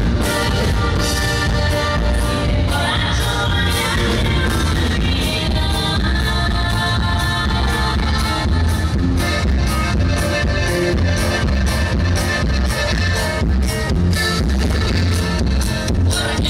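Amplified live dance band music with a steady beat and strong bass, with singing.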